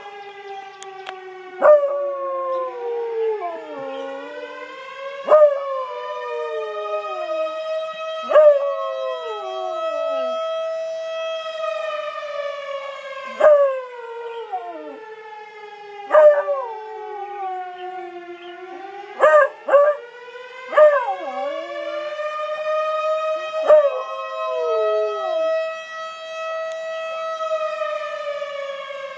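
A Bluetick coonhound howling at a fire siren. The dog gives about nine loud howls, each starting sharply and sliding down in pitch. Under them the siren holds a steady tone that slowly rises and falls.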